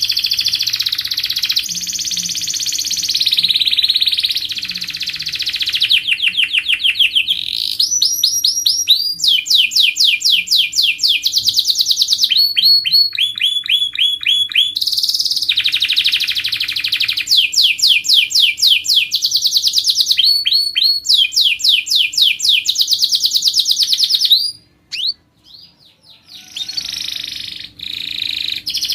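Canary singing a tutor song made of fast trills, each a quick run of repeated sweeping notes that lasts a second or two before the bird switches to a different trill. The song breaks off briefly near the end and then resumes.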